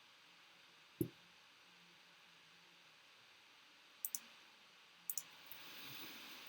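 A few sharp clicks: a single one about a second in, then quick pairs about four and five seconds in, over faint room noise that grows slightly near the end.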